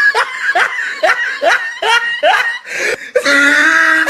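A person laughing hard: a quick run of short 'ha' bursts, each rising in pitch, then one long drawn-out note about three seconds in.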